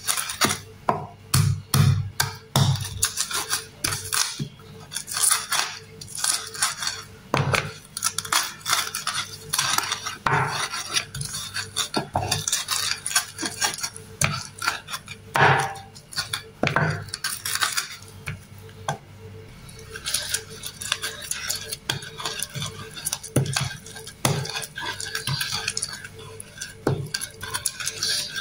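Stone pestle pounding and grinding shallots and garlic in a wooden mortar: irregular knocks and crunches, turning to steadier scraping for the last third as the pieces are worked into a paste.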